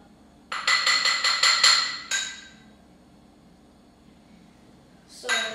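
A utensil knocking and clinking rapidly against a stainless steel saucepan, about eight ringing knocks over a second and a half. Another clatter of the same kind starts near the end.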